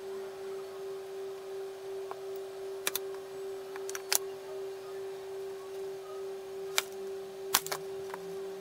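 Hardwood boards clacking as they are set down and shifted on a wood floor, about six short sharp knocks with two pairs close together, over a steady hum that wavers about twice a second.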